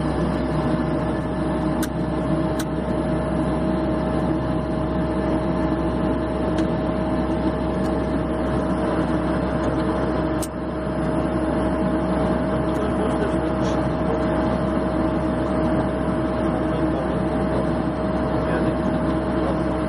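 Cessna 208B Grand Caravan's turboprop engine and propeller running steadily, heard inside the cockpit: a constant whine over a broad drone.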